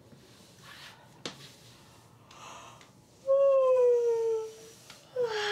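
A drawn-out, wordless vocal sound that slides slowly down in pitch, loud and lasting over a second, followed near the end by a second, shorter falling one. Before them there are soft breaths and a single light click.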